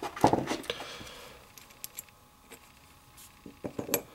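Small steel parts of a homemade single-shot rifle action clicking and clinking as the pins and hammer are handled and fitted. A brief clatter comes at the start, then scattered single ticks, and a short cluster of clicks near the end.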